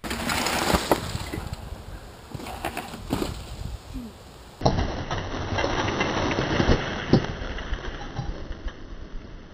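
Trek Fuel EX 7 mountain bike on a leaf-covered trail and a wooden plank boardwalk: tyres rustling through dry leaves, with sharp knocks as the bike hits and rolls over the planks. The rider crashes beside the boardwalk in the first few seconds.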